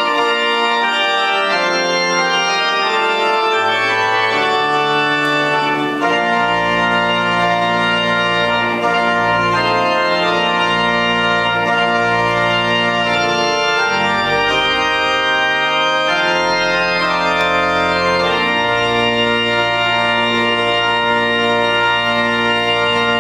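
Church organ playing a slow processional in sustained, shifting chords; deep pedal bass notes come in about six seconds in.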